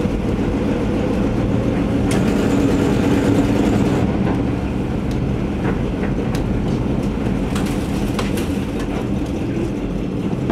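1977 Chevy van engine running steadily with the van under way, swelling louder a couple of seconds in. A loud exhaust leak is mixed in, later traced to a failed exhaust donut gasket and rusted-out mufflers and tailpipe. Short rattles and clicks come through now and then.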